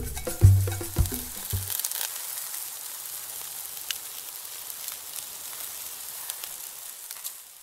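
Percussive intro music ends about two seconds in, leaving a steady sizzle like food frying on a hot griddle, with a few small crackles. The sizzle fades out near the end.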